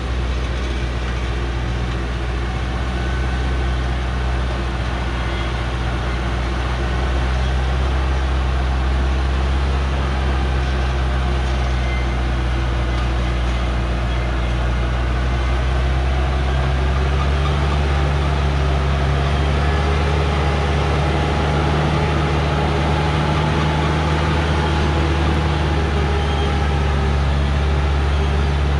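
Hoa Mai truck's diesel engine running as it crawls down a steep dirt track, growing a little louder as it comes closer, its pitch stepping up slightly about halfway through.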